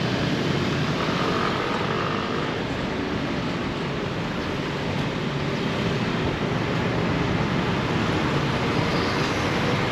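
Steady road and engine noise of a vehicle, an even rush with no distinct events.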